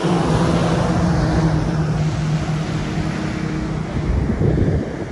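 A steady motor hum with wind rumbling on the microphone. The hum stops about three-quarters of the way through, and a short uneven rumble follows near the end.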